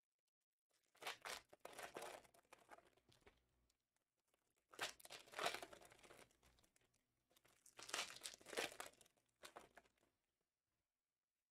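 Faint crinkling and tearing of packaging, most likely plastic wrap on card boxes. It comes in three rustling bursts of about two seconds each, with a shorter fourth one near the end.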